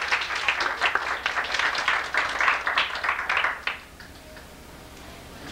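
A room of people applauding, dense clapping that dies away about four seconds in and leaves only quiet room sound.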